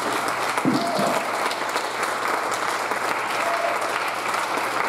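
Church congregation applauding: many people clapping steadily together.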